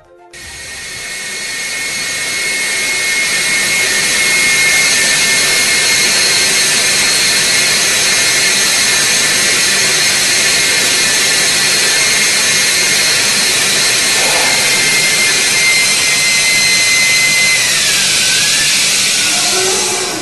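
Counterfeit turbocharger spun up on a test rig in a burst-containment test. A rushing, jet-like sound with a high steady whine builds over the first few seconds and then holds. Near the end the whine drops in pitch and the sound begins to fade.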